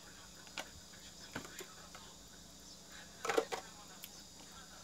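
Plastic lids and wrapping of ice cream cups being handled and peeled off: a few short crinkles and clicks, with a louder burst of crackling about three seconds in. A steady high insect hum runs underneath.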